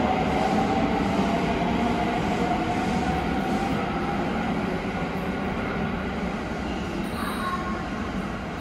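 Electric train running through an underground station, the rumble of its wheels fading slowly, with a squeal that slides down in pitch and dies away in the first couple of seconds.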